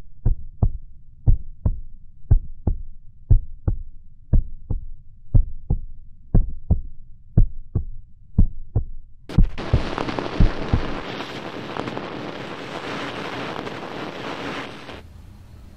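Heartbeat sound effect, a double thump about once a second, for roughly the first ten seconds. About nine seconds in, a loud hiss of TV static comes in over the last beats and cuts off suddenly near the end.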